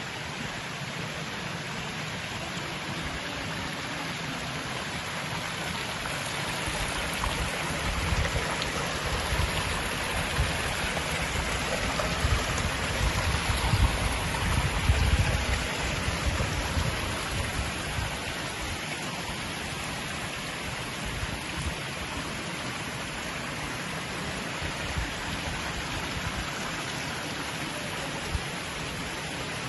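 Water pouring steadily from a long row of stone fountain spouts and splashing into stone troughs. It grows louder for several seconds in the middle.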